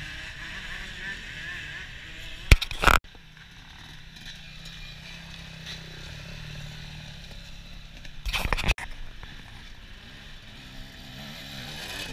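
Dirt bike engines running as riders pass along the trail, with two short loud bursts of noise about two and a half seconds in and about eight seconds in.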